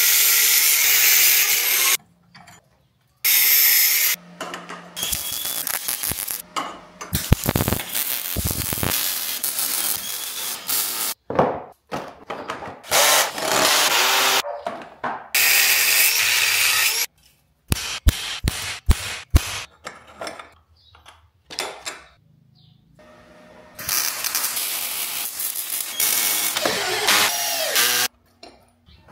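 Power tools cutting and drilling in repeated bursts of a few seconds, broken by short pauses, with a run of sharp knocks about two-thirds of the way in.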